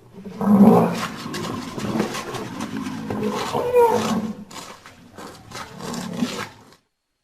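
A large wild animal roaring in several bouts, cutting off suddenly near the end.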